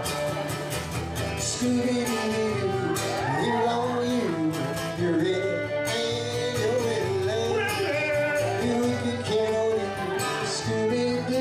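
Live band music: a fiddle and an acoustic guitar playing an upbeat bluegrass-style tune.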